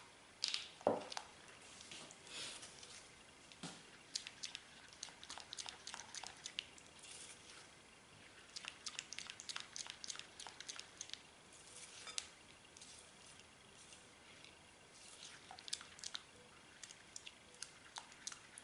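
Silicone spatula stirring a thick melted-chocolate mixture in a glass bowl: faint wet squishing with many small clicks, and a louder knock about a second in.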